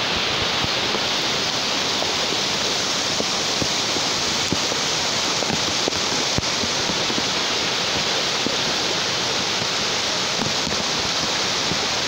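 Muddy floodwater rushing steadily after heavy rain, a continuous even wash of water noise with a few faint ticks.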